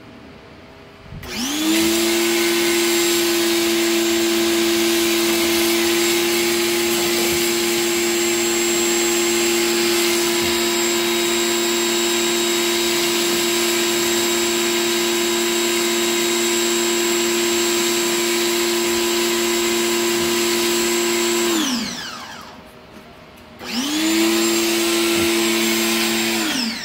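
Electric pressure washer driving a foam cannon: the motor spins up about a second in and runs steadily with a hiss of spray for about twenty seconds, then winds down as the trigger is released. It starts again about two seconds later and stops near the end.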